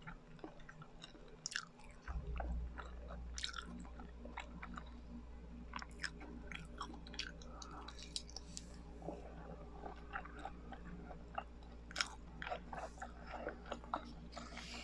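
Biting and chewing of biko, a sticky Filipino sweet rice cake, with sticky mouth sounds and smacks coming irregularly. A steady low hum comes in about two seconds in.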